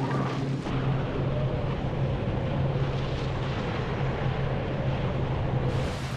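Tornado roaring: a loud, steady rushing wind rumble with a low steady hum beneath it, growing brighter and hissier near the end.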